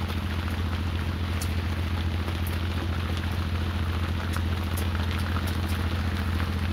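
Boat engine running at a steady low hum, with rain falling around it in a continuous hiss and scattered sharp drop ticks.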